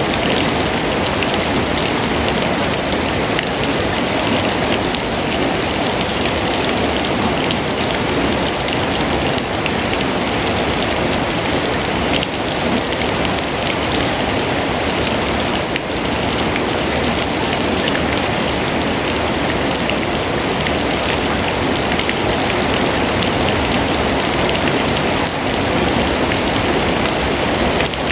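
Steady rain falling on a surface, an even hiss with individual drops ticking through it.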